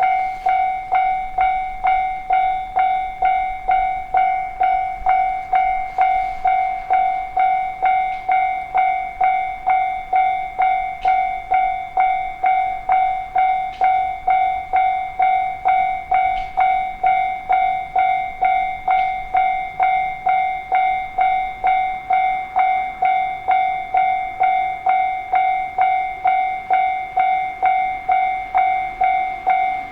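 Japanese railroad crossing warning bell ringing steadily, a clear dinging tone repeating about twice a second.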